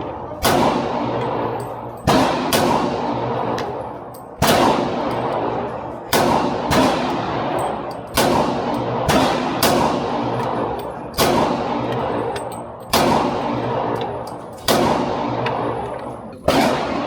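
Handgun shots firing in a steady string, about fifteen at uneven spacing of half a second to a second and a half, each with a long ringing decay; the gun is most likely a .40 S&W Glock pistol.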